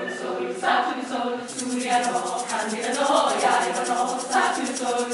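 Mixed-voice choir singing, with a fast, even shaker rhythm joining about a second and a half in.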